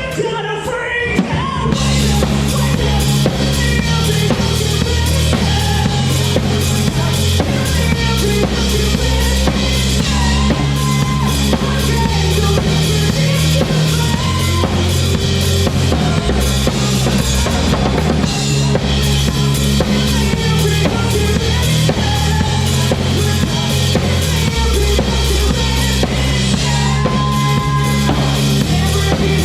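Live rock band playing, with a full drum kit to the fore: kick drum, snare and cymbals over sustained bass notes. The sound thins briefly at the very start, then the full band comes back in.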